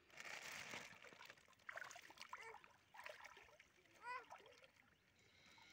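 Pond water splashing and sloshing as a person wades and handles a water-filled plastic bag, loudest in the first second. A few short voice sounds come in between.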